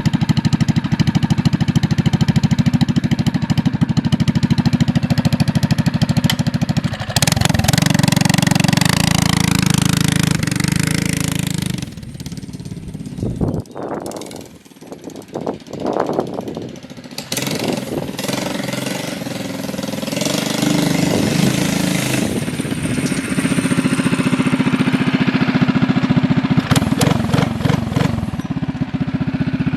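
Mini bike's Predator 212cc single-cylinder four-stroke engine, fitted with a stage 1 kit, open header and RLV muffler, running under riding load. The engine note rises and falls with the throttle, louder for a few seconds and then dropping away for several seconds past the middle before coming back strong.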